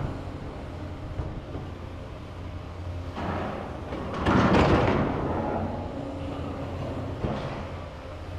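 Diesel excavator engines running steadily at a demolition site, with two louder bursts of grating, crunching noise about three seconds in and again a second later.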